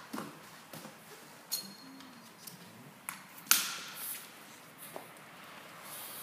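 Scattered sharp clicks and knocks, a couple with a short metallic ring; the loudest is a single hard knock about three and a half seconds in, ringing on briefly.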